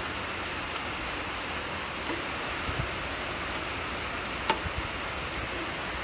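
A steady hiss with a few light clicks and knocks from a socket wrench being worked on a bolt. The sharpest click comes about four and a half seconds in.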